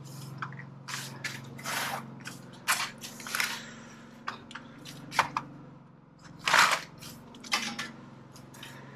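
Thin aluminum trim stock being handled and set down: a string of short knocks and clicks with rattling bursts of flexing sheet metal, the loudest near two seconds in and again past six seconds. A steady low hum runs underneath.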